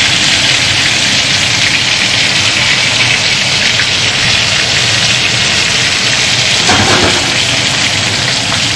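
Battered zucchini flowers deep-frying in a pan of olive oil: the hot oil bubbling with a steady, dense sizzle and crackle.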